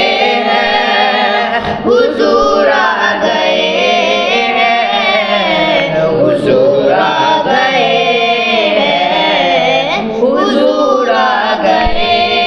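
An Urdu naat, a devotional song praising the Prophet, sung in long drawn-out melodic phrases that are held and ornamented for several seconds at a time.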